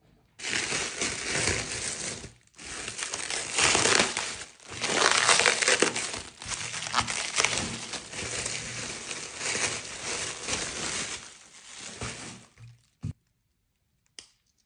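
Thin white wrapping paper crinkling and tearing as it is pulled off a cigar box, in long stretches of rustling with two brief pauses. It ends with a single short knock, then goes almost silent apart from a few faint clicks.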